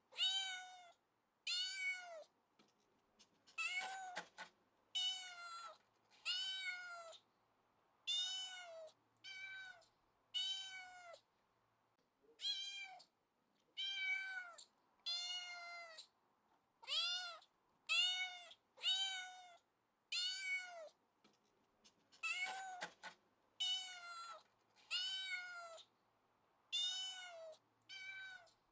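Domestic cat meowing over and over, one short meow about every second, each rising and then falling slightly in pitch.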